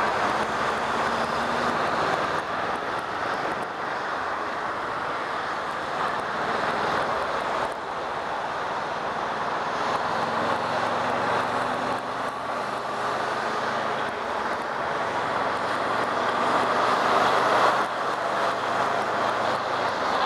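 Wind rushing over the microphone while riding a 2015 Kawasaki Ninja 650, with its parallel-twin engine running faintly underneath; the rush swells and eases a few times.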